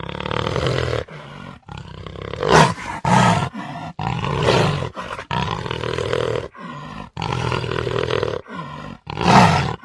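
Jaguar roaring and growling: a run of rough, deep calls, each half a second to a second long with short breaks between. The loudest calls come about two and a half seconds in and near the end.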